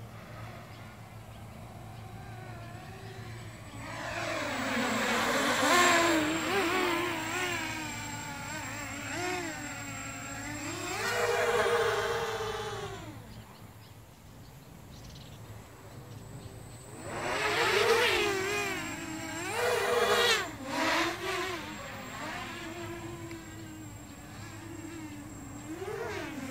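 Quadcopter drone's motors and propellers whining in fast flight, the pitch rising and falling with throttle. It swells loud in several passes: from about four seconds in, again around twelve seconds, and twice close together near eighteen and twenty seconds.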